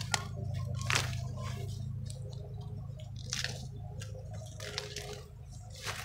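Ears of corn being snapped off the stalks by hand, with dry husks and leaves crackling and rustling in a handful of short, sharp snaps over a steady low hum.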